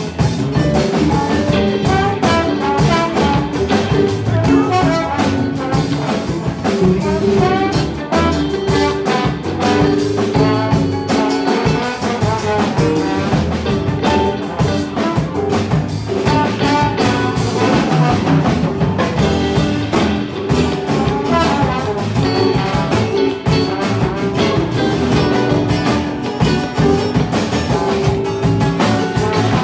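Live band of trombone, guitars, keyboard, bass and drums playing an instrumental passage with no singing; the trombone carries the lead line in long held notes over a steady drum beat.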